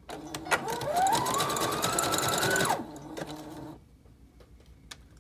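Brother electric sewing machine zigzag-stitching doubled hair wefts. The motor whine rises in pitch as it speeds up under a rapid needle clatter, then stops about three seconds in.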